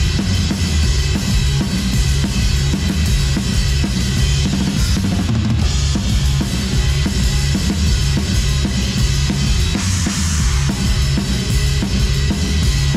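Rock drum kit played live in a dense, steady beat: bass drum, snare and cymbals, with a cymbal wash swelling about ten seconds in.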